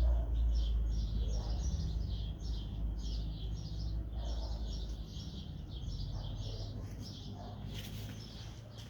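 Small birds chirping over and over in quick, high-pitched runs, with a low steady rumble underneath that is strongest at the start.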